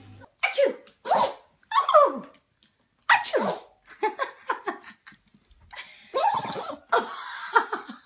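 Dogs, a Pomeranian among them, sneezing repeatedly: a string of short, sharp sneezes, with a quicker cluster of them near the end.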